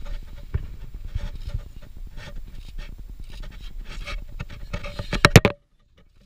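Polar bear sniffing and breathing right at the microphone, with knocks and scrapes as its nose and paw bump the metal stair steps and the camera. A cluster of loud knocks comes about five seconds in, then the sound cuts off suddenly.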